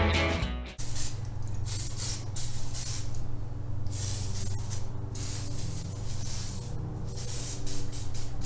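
Aerosol can of penetrating oil sprayed in a series of short hissing bursts onto a greasy axle housing, used as a degreaser to cut through grime.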